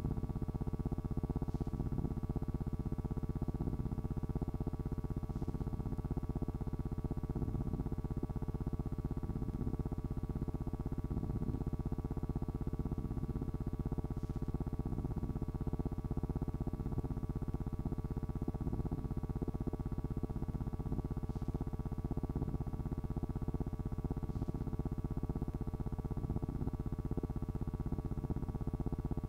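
Steady low hum and noise of a silent 16mm film soundtrack transfer, with several constant tones and a few faint clicks scattered through.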